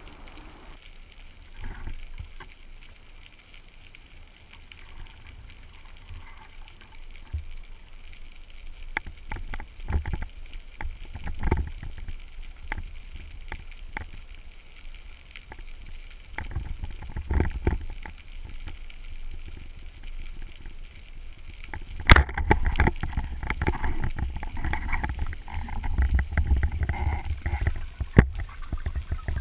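Underwater sound picked up by an action camera in its waterproof housing while diving: a muffled low water rumble with scattered sharp clicks and knocks, growing louder about three-quarters of the way through.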